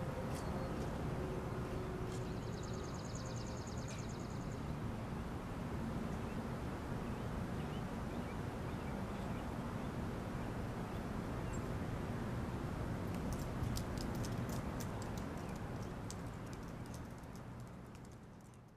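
Steady outdoor ambience of wind and distant low rumble, with a high rapid trill about two seconds in lasting a couple of seconds and a run of faint clicks near the end, fading out at the close.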